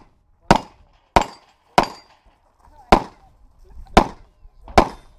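Six shots from a Limited-division competition pistol: three about two-thirds of a second apart, then three about a second apart, each a sharp crack with a short ring after it.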